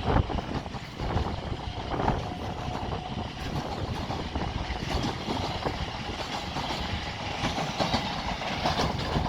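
Class 701 electric multiple unit pulling out and running past, a steady rumble of wheels on rail with scattered clicks as it crosses rail joints and points.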